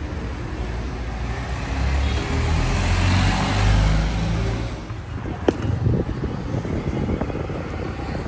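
Road traffic: a motor vehicle's noise swells to a peak about three and a half seconds in and fades away, like a vehicle passing close. A few sharp clicks follow.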